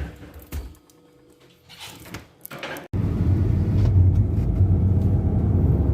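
A few soft handling clicks and rustles, then about three seconds in an abrupt cut to a steady, loud low rumble.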